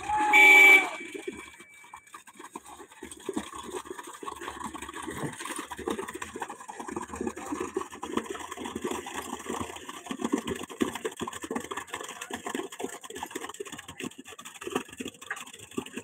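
A short, loud pitched call in the first second. Then concrete is pumped from a boom pump's end hose into a column's formwork, an irregular rough, rushing noise that carries on steadily.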